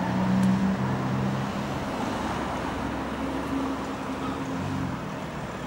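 Road traffic passing close by: car engines running over a steady noise of tyres on the road, loudest in the first second or so.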